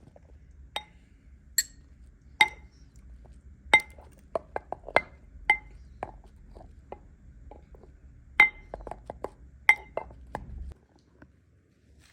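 Dishes and glassware clinking: a run of sharp, ringing clinks at irregular intervals, loudest about two and a half, four, eight and a half and ten seconds in.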